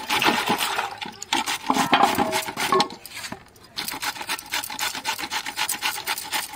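White radish being grated on a flat stainless-steel hand grater over a steel bowl: quick repeated rasping scrapes, several strokes a second, as the radish is shredded.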